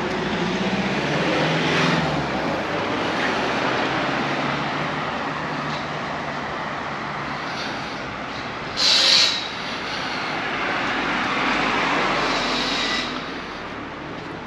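Road traffic passing on a village main road, a steady rush of engines and tyres that swells as vehicles go by, with a short loud hiss about nine seconds in.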